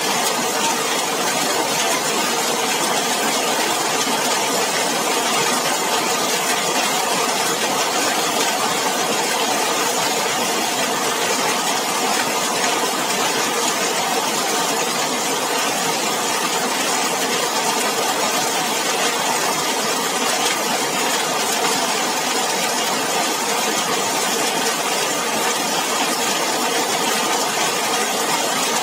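Heavy rain falling steadily on a zinc sheet roof and splashing on wet paving: a dense, even patter that holds the same level throughout.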